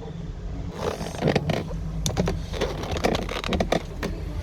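Irregular light clicks and taps of a smartphone and small repair tools being handled on a workbench, over a steady low electrical hum.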